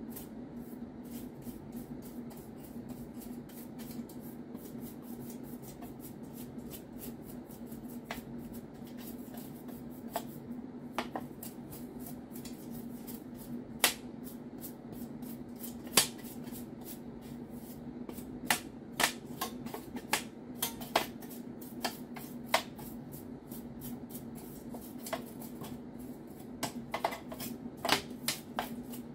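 Hands rubbing and handling the inside of an empty sheet-metal Cisco Catalyst 2980G-A switch chassis: soft rustling with scattered sharp clicks and taps, more of them in the second half, over a steady low hum.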